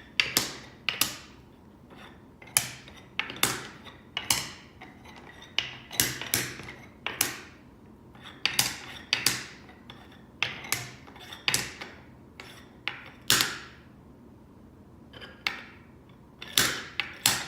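Wooden beads clacking together in irregular sharp clicks, about one or two a second, each with a brief ring.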